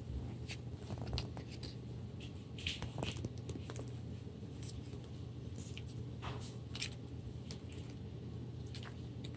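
Paper pages of thin staple-bound paperback children's books being turned and handled: a scattering of soft, brief rustles and brushes, over a steady low hum.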